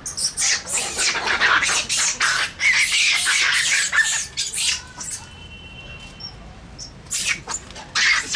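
Crab-eating macaques giving rapid, high-pitched screeching calls as the troop chases and scuffles. The calls break off for a couple of seconds past the middle, then start again near the end.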